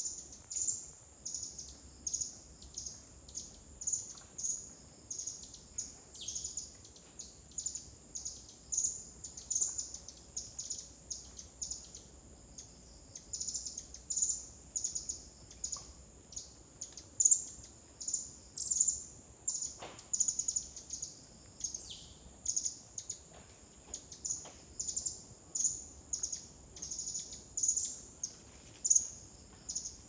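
Tropical forest ambience: a steady high-pitched insect hum, with short, high chirps repeating about one to two times a second.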